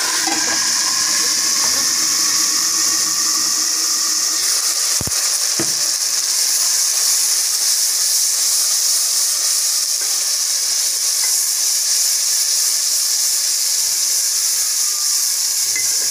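Water hitting dark-browned onions in hot ghee in an aluminium pot: a loud, steady sizzling hiss as the water flashes to steam. Two sharp knocks come about five seconds in.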